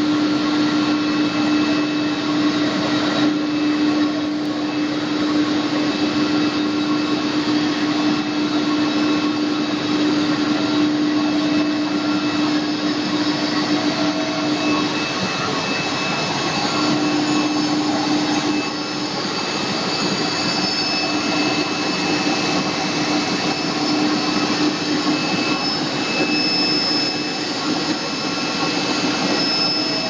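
Power cable extrusion line running: a continuous dense whirr of machinery with a steady hum that weakens about halfway through.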